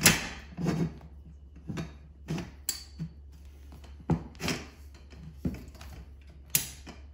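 Metal tubes of a tennis net frame knocking and clicking as they are handled and pressed together on a wooden floor: about ten separate sharp knocks at irregular intervals, the loudest right at the start.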